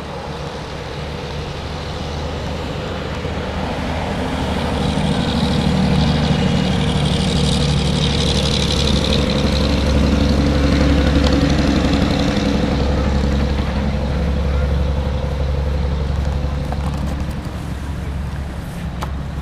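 A motor vehicle's engine running steadily, growing louder over several seconds, loudest through the middle and slowly fading toward the end, as it passes by.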